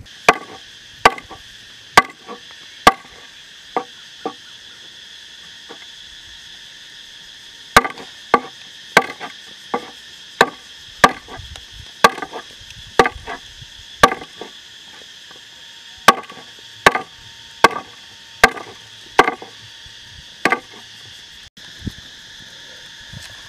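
Cleaver chopping down onto a wooden board, single sharp strikes roughly once a second, with a pause of a few seconds after the first six. A steady high buzz of insects runs underneath.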